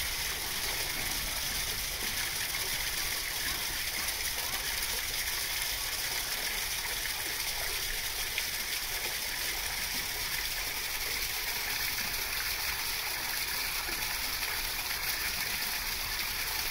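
Steady rush of running water, even and unbroken, with no distinct splashes standing out.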